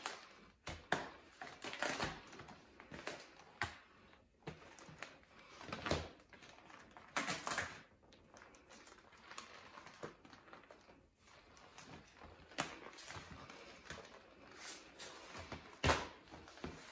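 Deflated vinyl inflatable toy being unfolded and smoothed out by hand: irregular crinkling and rustling of the stiff plastic sheeting, with a few louder crackles, the sharpest near the end.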